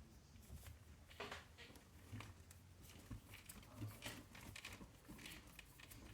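Faint clicks and scrapes of a small screwdriver driving screws into the soft plastic of an RC car's chassis, over near silence.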